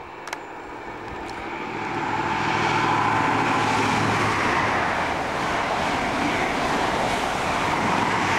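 HST (InterCity 125) Class 43 diesel power car approaching and passing at speed: a low engine hum growing louder over the first two seconds or so, then a sustained loud rush of engine and wheels on rail as the train goes by.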